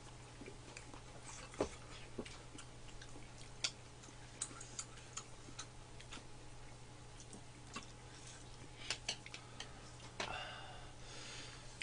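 Quiet eating sounds: sparse, sharp clicks of a metal spoon and chopsticks against bowls and the pot, a dozen or so scattered through, over a steady low hum.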